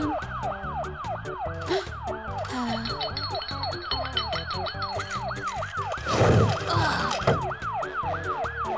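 Ambulance siren sound effect, a fast up-and-down yelp of about four sweeps a second, over background music. A loud noisy burst comes about six seconds in.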